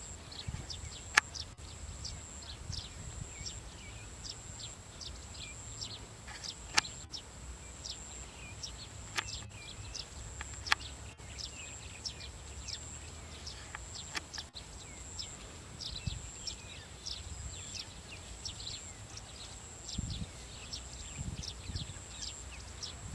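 Many small birds chirping, short quick falling calls several times a second, over a steady high thin whine and a low rumble, with a few sharp clicks about a second, seven seconds and eleven seconds in.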